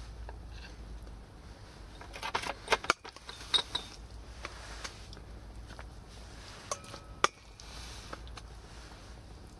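Metal spoon and camp cooking utensils clinking and knocking as they are handled, with a quick cluster of sharp clicks about two to three seconds in and a single sharp click about seven seconds in.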